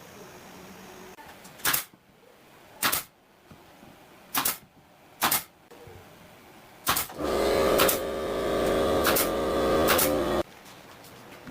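Five sharp wooden knocks a second or so apart, then a motor-driven power tool runs for about three seconds and cuts off suddenly, with a few more knocks over it.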